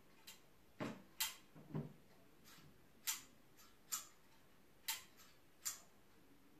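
About a dozen light clicks and taps at irregular intervals, a few of them with a dull low thump, over a faint background.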